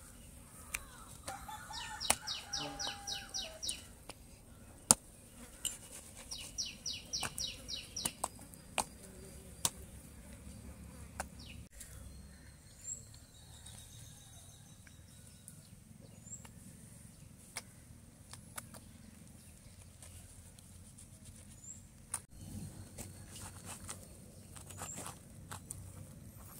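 Hands working through split jackfruit, giving scattered clicks and rustles of the sticky fibrous flesh. A rapid, evenly pulsed high trill sounds twice in the first eight seconds, and faint short high chirps recur later.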